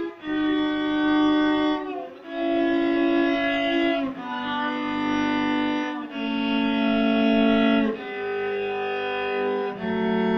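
Cello playing a D major scale slowly downward, one long bowed note of about two seconds per step, each note a little lower than the last, with a brief dip in sound at each bow change.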